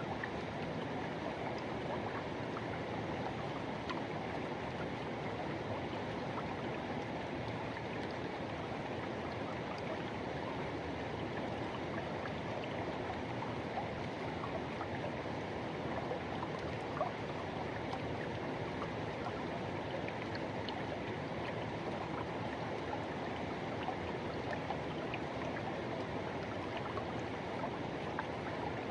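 Forest river water rushing in a steady, even flow, with small splashes now and then.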